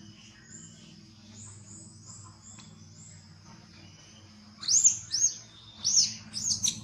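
A run of short, loud, high-pitched calls, each rising then falling, begins about two-thirds of the way in and repeats several times, after fainter chirps earlier.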